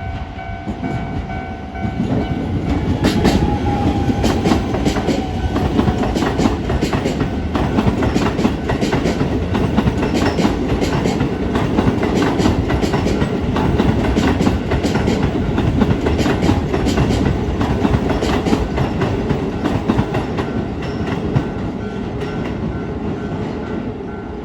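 Keisei 3000-series electric train passing through a level crossing: a loud rush of running noise rises about two seconds in, with rapid irregular wheel clatter over the rail joints and crossing for most of the pass, easing near the end. The crossing's warning bell rings underneath as steady tones.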